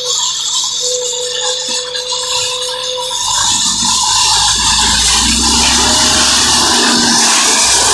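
AJAX 4000 self-loading concrete mixer's engine and hydraulics running as the machine manoeuvres and works its loading bucket. The engine note gets louder and deeper about three seconds in.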